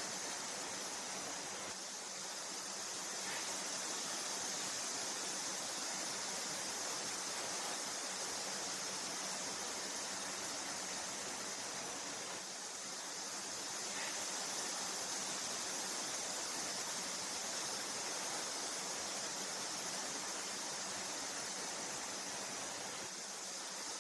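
Cicadas singing in a steady, high-pitched chorus that eases slightly about every ten seconds.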